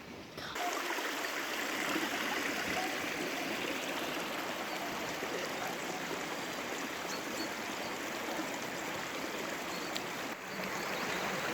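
Running water of a stream, a steady rush that starts abruptly about half a second in.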